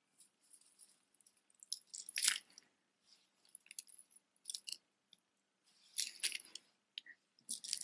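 Strands of tiny seed beads rustling and clicking against each other as a tangled multi-strand necklace is handled, in a few short bursts, the loudest about two seconds in.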